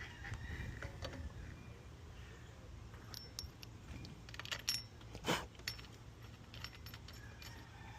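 Metal tools and parts clinking and tapping in a scatter of light metallic clicks, with the loudest clack about five seconds in, over a steady low hum.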